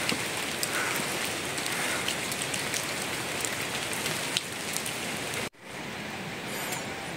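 Steady rain falling, with scattered sharp drip ticks. The sound drops out for an instant about five and a half seconds in, then goes on a little quieter.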